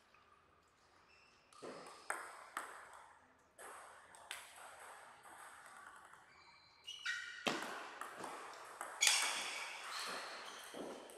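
Table tennis ball clicking sharply as it bounces on the table and is struck with rackets. The clicks come singly at first and crowd together in the second half, some with a short ringing ping.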